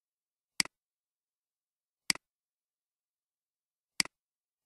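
Three computer mouse clicks, spaced about one and a half to two seconds apart. Each is a sharp press followed at once by a softer release.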